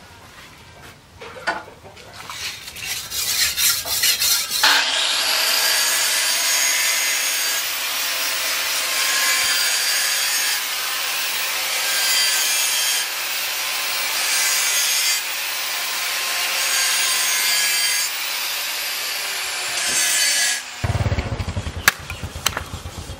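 Large forged steel knife blade rubbed back and forth on a sharpening stone. After a few separate strokes it becomes a harsh, continuous grinding hiss that swells and dips, then stops abruptly near the end. A single sharp knock of a blade chopping into wood follows.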